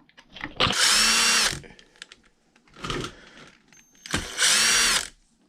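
Electric drill-driver running twice in short bursts just under a second each, about three seconds apart, backing out screws from the RC truck's chassis.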